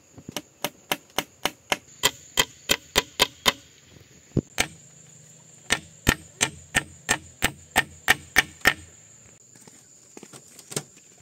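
Rapid, regular chopping strikes, about three a second, in two runs with a short break in the middle.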